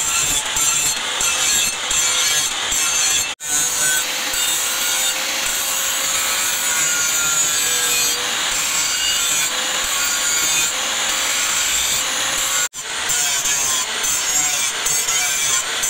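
Angle grinder with an abrasive disc grinding a leaf-spring steel cleaver blade: a steady motor whine under a loud, continuous grinding hiss. The sound cuts out abruptly for a moment twice, then resumes.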